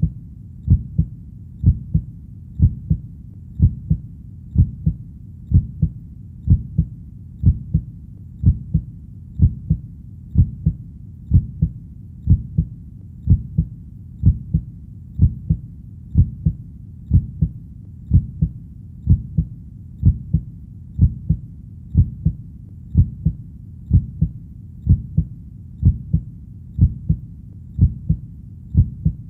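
Heartbeat, a steady lub-dub of two low thumps, the second softer, repeating a little more than once a second.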